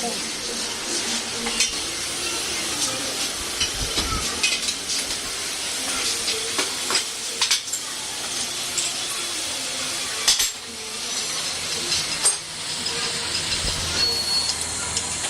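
Metalworking on a motorcycle wheel hub: irregular metal clinks and taps over a steady crackling hiss.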